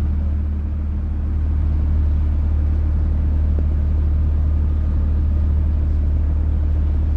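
A tour boat's engine running steadily, a loud, even low hum.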